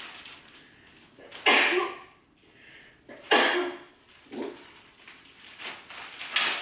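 A woman makes two loud, sudden explosive bursts, coughs or sneezes, each over in about half a second, with a fainter one later on.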